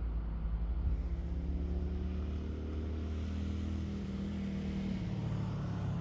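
A motor vehicle engine running with a steady low drone, with a fainter tone that rises slowly in pitch during the first half.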